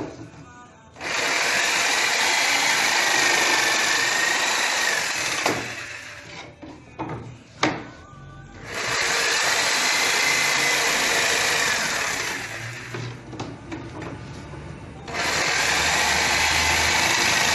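Corded jigsaw cutting an MDF board, running in three bursts of three to four seconds with a steady high whine and stopping between them. A few knocks in the pauses.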